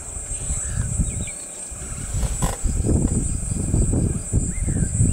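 Wind buffeting the microphone in uneven low gusts, stronger in the second half, over a steady high insect drone in the grass and a few short bird chirps.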